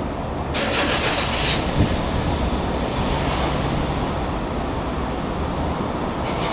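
Rail-yard ambience heard from a distance: a steady low rumble, with a sharp hiss about half a second in that lasts about a second.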